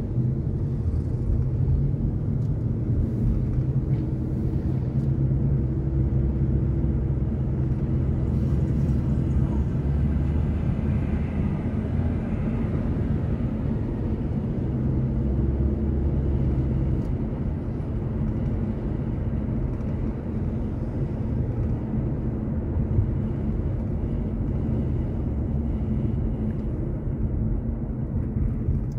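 Car interior driving noise: a steady low rumble of engine and tyres on the road, heard from inside the cabin, with the engine hum shifting slightly as the car speeds up and slows.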